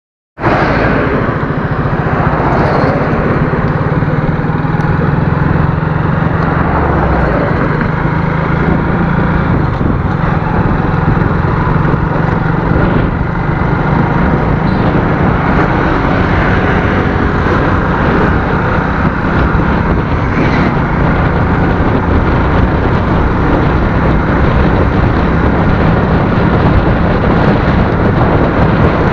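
Motorcycle engine running steadily while being ridden along the road, under a loud, even rush of wind noise on the microphone.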